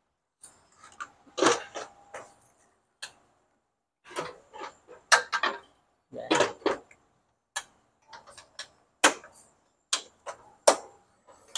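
Scattered metal clicks, knocks and short clatters from the pump tube and lid of a red bucket-type fluid lubricator being handled and fitted back onto its metal bucket.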